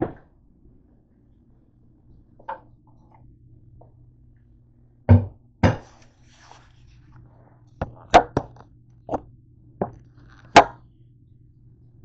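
A string of irregular knocks and clunks from things being handled and set down on a kitchen counter, about ten in all, the loudest around the middle and near the end, over a steady low hum.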